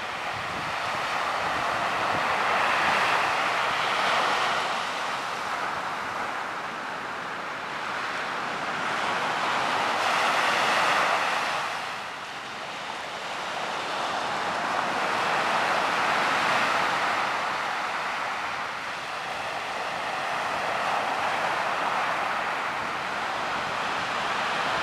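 Ocean surf: waves breaking and washing in, each surge swelling and easing about every six seconds.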